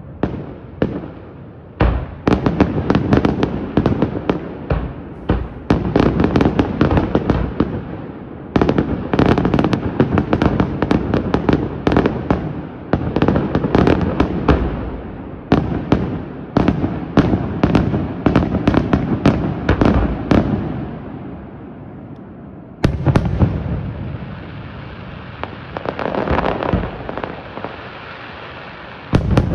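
Fireworks display: rapid, dense strings of bangs and crackles for most of the first twenty seconds. After a brief lull comes a single sharp bang, then a stretch of hissing and crackling, and another big bang near the end.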